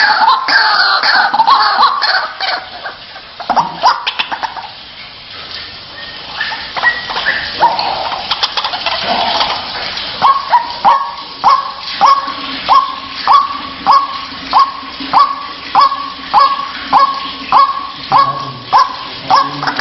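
White-breasted waterhen calls: first a tangle of harsh, falling croaking calls, then from about halfway a steady run of short falling notes, about two a second.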